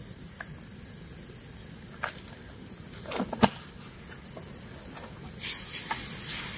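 Pot of braising pork tendon and tofu puffs cooking on a camp stove: a steady hiss with a few light clinks of a utensil against the pot, the loudest about three and a half seconds in, and louder stirring and sizzling near the end.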